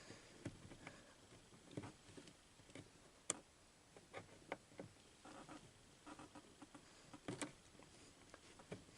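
Near silence with a few faint, scattered clicks and taps of small handling noises.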